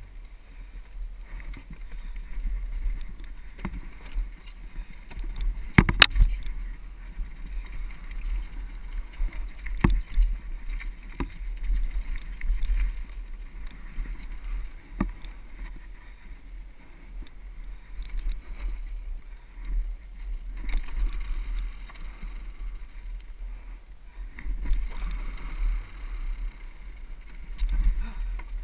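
Mountain bike ridden fast downhill, heard through a helmet-mounted camera: a steady low rumble with tyre and frame rattle, broken every few seconds by sharp knocks as the wheels hit bumps and the slats of wooden ladder bridges.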